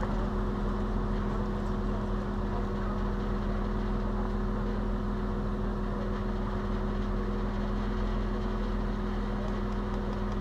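Engine of a 1989 Toyota 4Runner idling steadily, with an even hum and no revving.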